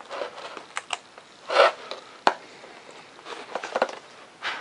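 Foam-board model jet being handled: the taped foam intake piece is pressed into its opening and the airframe is picked up. The result is soft rubbing and scraping with scattered clicks and taps. The loudest sound is a brief scrape about a second and a half in, followed by a sharp click just after two seconds.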